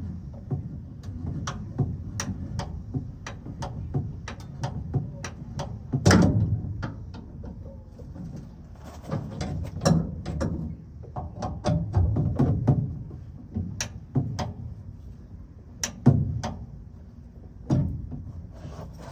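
Metal clicking and clanking from a Chevrolet Silverado's under-bed spare tire hoist being worked to raise the spare. The clicks come about two a second at first, then more irregularly, with a few heavier knocks.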